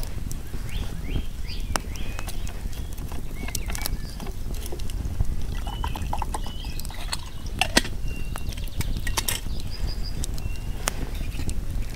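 Wood campfire crackling, with scattered pops and clicks, and the occasional clink of a small metal cook pot and its lid being handled, over a steady low rumble.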